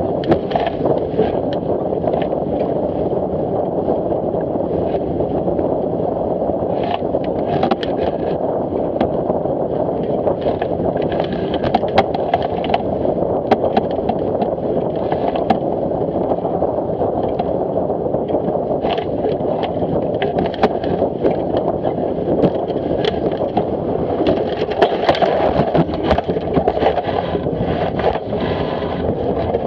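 Fireball racing dinghy driving through choppy water: a steady rush of water along the hull and spray, broken by frequent sharp splashes and knocks of waves against the boat, busiest near the end.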